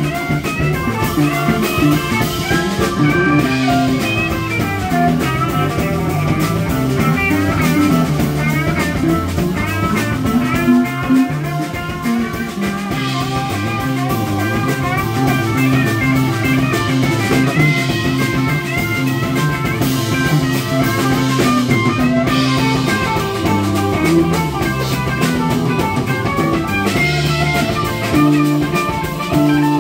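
Live band playing an instrumental passage: electric guitar, electric bass, keyboard and drum kit, with busy melodic lines over a moving bass line and cymbals.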